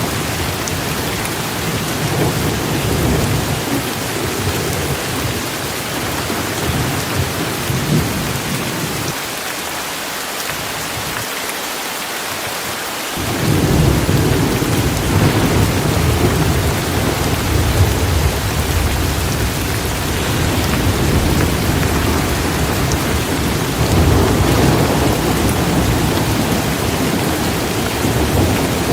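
Steady downpour of rain with a deep rumble under it; the rumble drops away about nine seconds in and comes back stronger about four seconds later.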